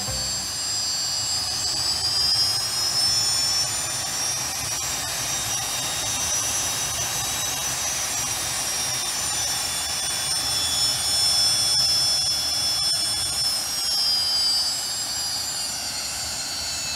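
Rolls-Royce Avon turbojet being spun on compressed air: a high compressor whine rises over the first few seconds, holds steady, and sinks again near the end, over a steady rush of air.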